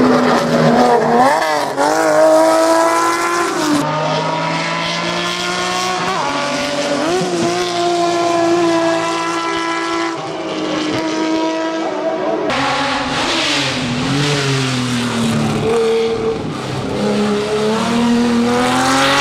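Datsun 280Z race car's straight-six engine revving hard under acceleration, its pitch climbing and then dropping several times at each gear change.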